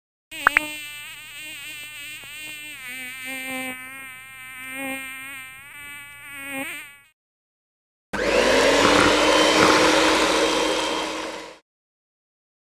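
Cartoon bee buzzing sound effect, a wavering pitched buzz lasting about seven seconds that opens with a click. After a short pause comes a steady whirring noise of about three and a half seconds, whose hum rises briefly as it starts.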